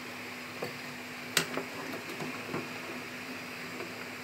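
A spoon stirring thick kheer in an aluminium pot, knocking softly against the pot several times, with one sharp click about a second and a half in. A steady hiss runs underneath.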